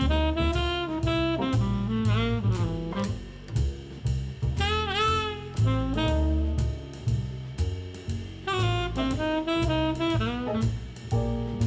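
Background music: an upbeat jazz tune, a lead melody over a steady drum beat and bass, with a wavering held note about five seconds in.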